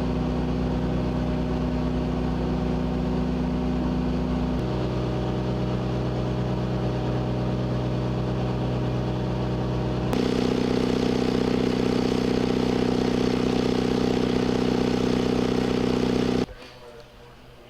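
Engine-driven dewatering pumps running steadily with a low, even engine note. The pitch and loudness jump abruptly twice, then drop to a much quieter background near the end.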